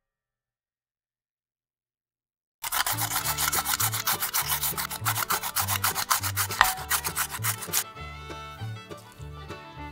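Silence for the first couple of seconds, then a carrot being shredded on a handheld julienne grater: quick, even rasping strokes, about seven a second, for some five seconds before stopping, over background music.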